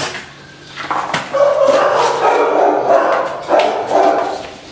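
A dog vocalizing in a drawn-out run of pitched cries. It starts about a second in and fades near the end.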